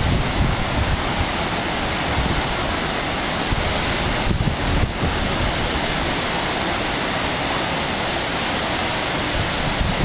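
Wind rushing and buffeting the microphone over a steady roar of heavy ocean surf.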